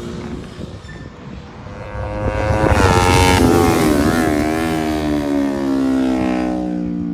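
Sport motorcycle engine passing by. It grows loud about three seconds in, its pitch dips as it goes past, and it holds a lower, steadier note as it rides off.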